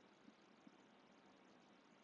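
Near silence: faint steady hiss of room tone, with two faint short clicks in the first second.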